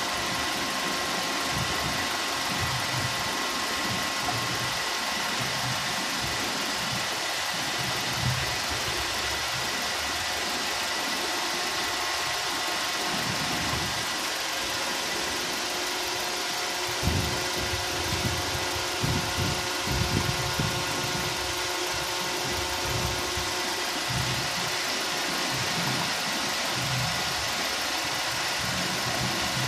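Car engine idling steadily under an open bonnet, running so the freshly filled radiator coolant circulates and the level drops for topping up. A few low thumps come about halfway through.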